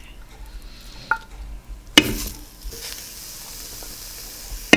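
Marinated seitan pieces going into a hot saucepan: a knock about two seconds in, then steady sizzling, with another knock near the end.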